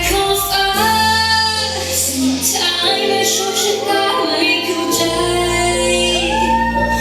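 A woman singing a slow Thai pop-rock song over instrumental accompaniment, holding long notes.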